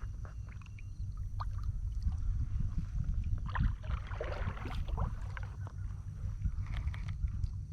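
Wind buffeting the microphone on a small boat in choppy water, a steady low rumble with water lapping at the hull and scattered small knocks, and a brief splashing rush about four seconds in.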